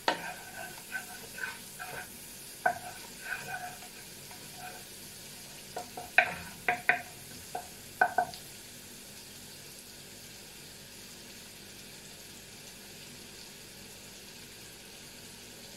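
Chopped green chillies and ginger-garlic paste sizzling in melted butter in a nonstick wok. A spoon stirs them, scraping and tapping the pan in short strokes for about the first eight seconds, then only the steady sizzle remains.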